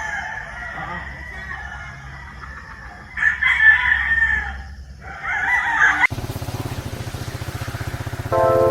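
Gamefowl roosters crowing, with two loud crows about three and five seconds in. About six seconds in the sound cuts abruptly to music.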